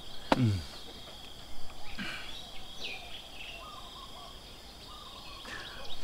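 Morning outdoor ambience: a steady high insect drone with a few short bird chirps. A brief falling sound comes just after the start and a sharp click about two seconds in.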